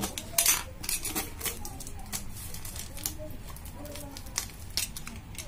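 Utility knife cutting through packing tape on a cardboard tube, and the tape being torn and peeled off: a run of short, irregular scrapes and rips, the loudest about half a second in.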